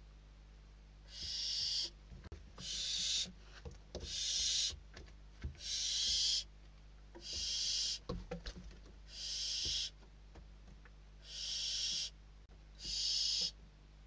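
Barn owl chicks' harsh hissing begging calls: the hungry nestlings are competing for a delivered prey bird. About ten calls, each under a second long, come roughly every second and a half, with faint scuffling clicks in the nest litter between them.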